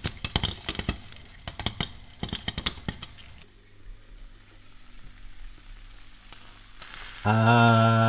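Popcorn kernels popping rapidly in hot oil under a glass-lidded frying pan, over a sizzle. After about three seconds the popping stops and a quieter sizzle is left. A short, loud, low steady hum comes in near the end.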